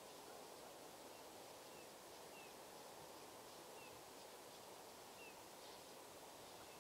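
Near silence: a faint, steady outdoor hiss, with a few faint, short, high chirps that slide downward, spaced a second or so apart.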